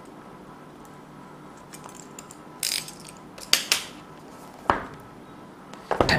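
Cardboard smartphone retail box being opened by hand: faint ticks of the seal being cut, then a short scraping tear about two and a half seconds in, followed by a few sharp clicks and knocks of the box against the table as its sleeve is worked off.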